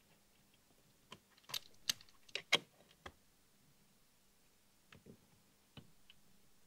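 Small sharp metallic clicks and taps from needle-nose pliers bending and seating resistor leads against turret posts. About six come in quick succession a second or so in, and a few more follow near the end.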